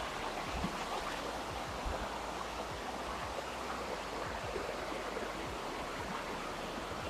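Waterfall and rocky stream rushing, a steady, even rush of water.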